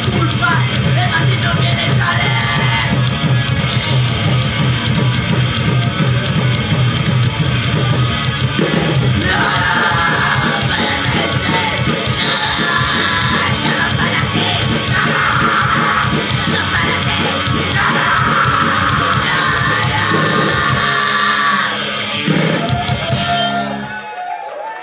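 Punk band playing live: distorted guitars and drums, with shouted vocals in bursts. The song stops abruptly near the end.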